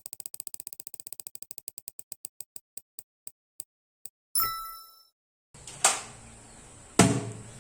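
A spinning wheel ticking as its pointer clicks past the pegs, the clicks slowing from about a dozen a second to a stop about four seconds in. A short bright chime follows, then a couple of knocks near the end.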